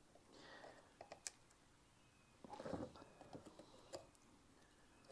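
Faint clicks and a short scrape of small-parts work on a motorcycle carburetor, with a part being worked loose from the carb body. The scrape, about two and a half seconds in, is the loudest sound, with a few separate clicks before and after it.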